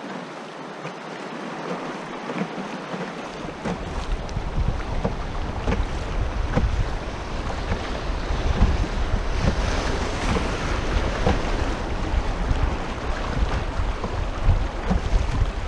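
Fast river current rushing and splashing around a drifting canoe, with wind buffeting the microphone from about three seconds in.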